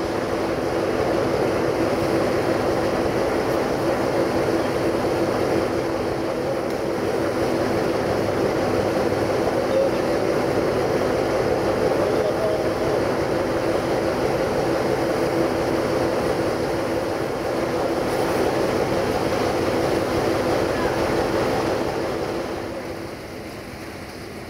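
Locomotives moving slowly in a shunting move, with steam locomotive 142.044 close by: a steady running noise with a constant hum. It drops in level about two seconds before the end.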